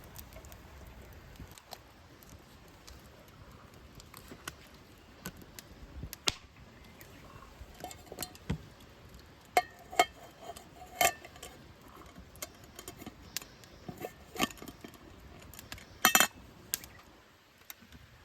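Tableware clinking: utensils tapping against dishes in a scattered series of sharp, ringing clinks, the loudest a quick cluster near the end.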